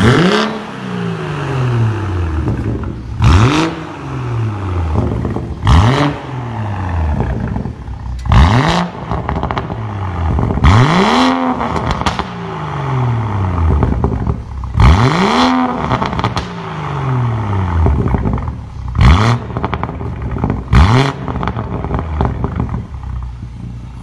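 BMW 440i's turbocharged 3.0-litre straight-six, breathing through an Armytrix valvetronic exhaust, free-revved about eight times while parked. Each rev climbs sharply and then falls away slowly as the revs drop back to idle.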